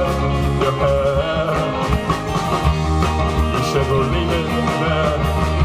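Live band playing a rock song, with bass, a melodic line and regular drum hits.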